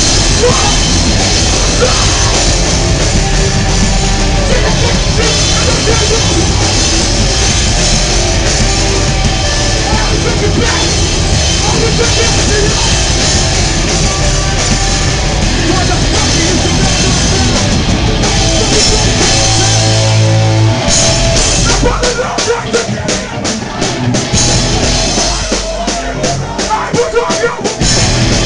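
Hardcore punk band playing live and loud: distorted guitars, bass and drums. About two-thirds of the way through, the full wall of sound drops to a sparser part punctuated by sharp, repeated drum hits.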